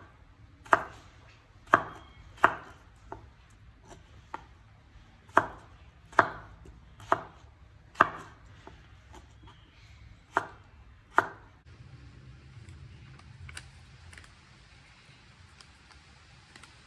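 A cleaver chopping raw potato slices into fry sticks on a wooden cutting board: about ten sharp knocks of the blade on the board at an uneven pace, stopping about two-thirds of the way through. After that comes a faint soft patter as powder is sprinkled over the cut potato sticks.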